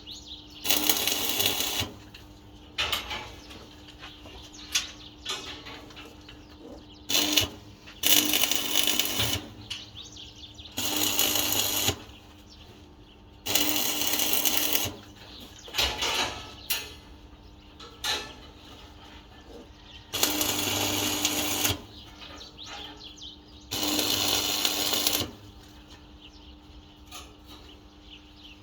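Electric arc welding in short bursts: a crackling, hissing arc about seven or eight times, each run a second or so long, with quiet gaps and small clicks of metal handling between them.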